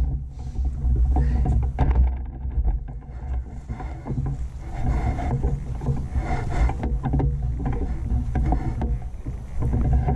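Heavy rumble of wind and handling noise on a swinging, hand-carried camera as its carrier walks, with irregular footsteps and rustling through grass and dry leaves.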